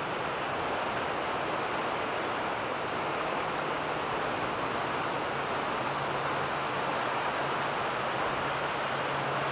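A storm-swollen river in flood, its fast water rushing past trees and shrubs with a steady, even rushing noise. A faint low hum joins it about halfway through.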